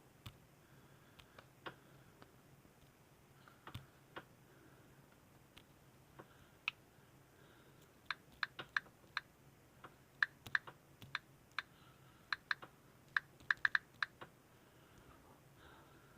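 Computer keyboard keys being pressed: scattered single clicks at first, then a quicker run of key presses in the second half.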